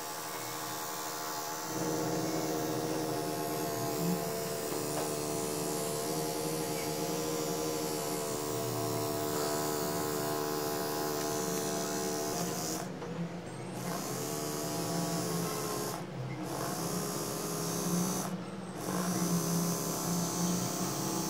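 Homemade DC electric motor, a copper-wire coil spinning between two magnets on paper-clip contacts, running with a steady pitched hum. In the second half it cuts out briefly three times, rising in pitch each time as it speeds back up.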